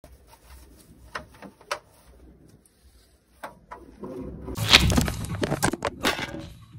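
Clear plastic fridge drawer being cleaned with a broom: a few sharp knocks, then from about four seconds a louder stretch of plastic clattering and scraping as the drawer is picked up and handled.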